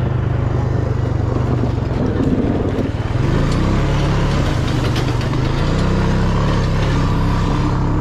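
Four-wheeler (ATV) engine running as it is ridden over a rough dirt and rock track. Its note rises about three seconds in, then drops and climbs again near the end.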